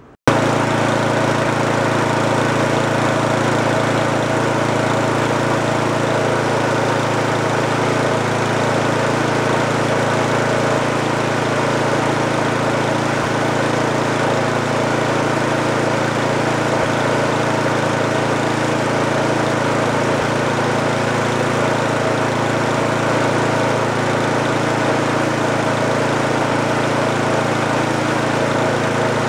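Small single-cylinder snowblower engine running at a steady speed, spinning its bare crankshaft while emery cloth is held against the shaft to polish it.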